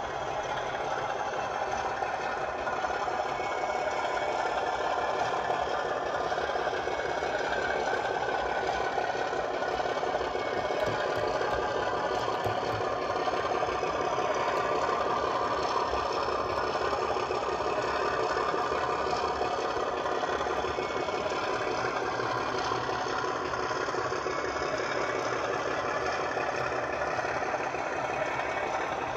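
Sound decoder in a 00 gauge model Class 37 diesel locomotive playing diesel engine sound, running steadily.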